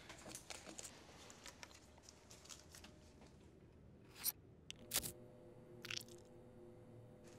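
Soft crinkling of a paper banknote being handled, then scissors snipping through a plastic credit card in two sharp cuts about four and five seconds in, and a smaller paper tear near six seconds.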